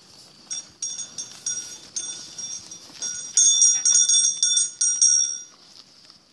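Small metal bell on a grazing sheep's neck clinking irregularly as the animal moves its head to crop grass, two to three strikes a second with short ringing after each. The ringing is loudest from about halfway and dies away near the end.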